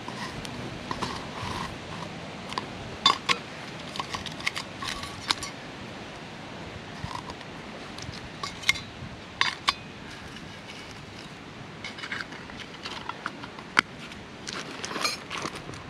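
Scattered small clicks and taps of hand-handled camp gear as a lid is twisted on a small round container and pieces are picked up and set down, over a steady background hiss.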